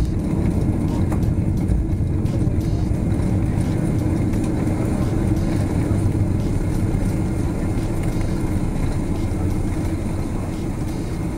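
Steady low rumble heard inside the cabin of a Boeing 777-200LR as it rolls along the ground, the engines and the wheels on the pavement blending into one noise that eases off slightly toward the end.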